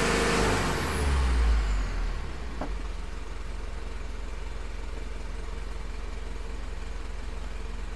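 Mitsubishi Fuso 4M50 four-cylinder common-rail turbodiesel dropping from raised revs back to idle in the first two seconds, with a faint high whine falling in pitch, then idling steadily. The engine is being revved for a boost-pressure test and is underboosting: the turbo does not build enough pressure.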